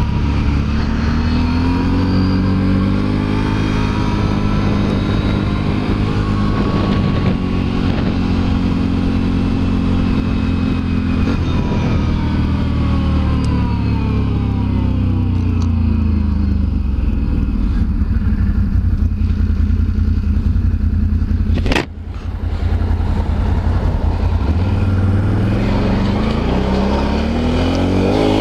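Can-Am Renegade 1000 ATV's V-twin engine running under way, its revs rising and falling several times as it accelerates and slows. About two-thirds of the way through there is one sharp knock and the engine sound dips briefly.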